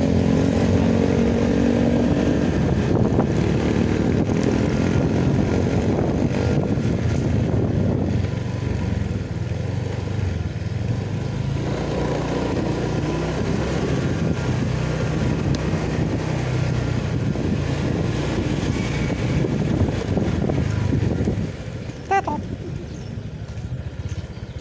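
Motorcycle engine running steadily while riding, heard from the rider's seat. About three seconds before the end the engine note eases off, and a brief higher-pitched sound comes just after.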